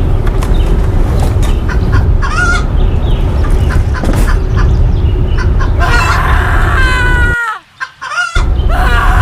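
Chickens calling over a loud, steady rush of wind: a rooster crows in drawn-out calls that fall in pitch, with hens clucking. The wind and calls cut out suddenly for about a second near the end, then resume.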